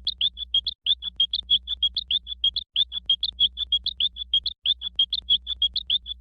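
Rapid high-pitched chirping sound effect, about eight short chirps a second at one steady pitch, with brief breaks about a second in, near the middle and about two-thirds in.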